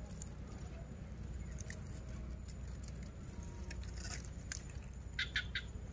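Faint handling sounds from a hand working an eel-fishing line at a mud burrow: light rustles and scattered small clicks over a steady low rumble, with a quick run of three sharp clicks near the end.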